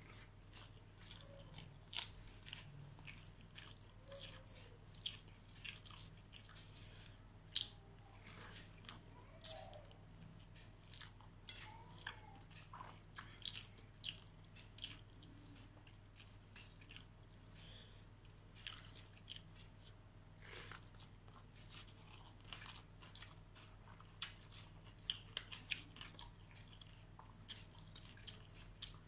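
A person eating rice and chicken curry by hand: irregular wet chewing and mouth clicks, with fingers squishing rice and curry on a steel plate. A steady low hum runs underneath.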